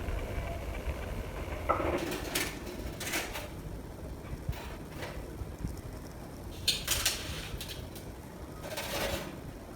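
Scattered knocks, clinks and rustles of pots and objects being handled and set down, over a low rumble.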